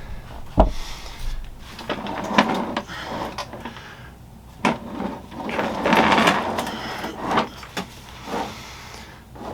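Handling noises as the table saw and its packaging are moved about: several sharp knocks and bumps mixed with scraping and rustling.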